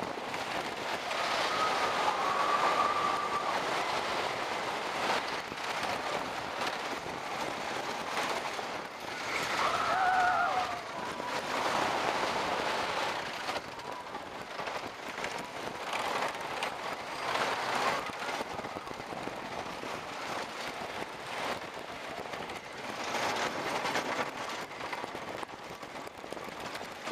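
Wooden roller coaster train rumbling and clattering along its track at speed, with wind rushing over the microphone. The noise swells and eases as the ride goes, loudest about ten seconds in.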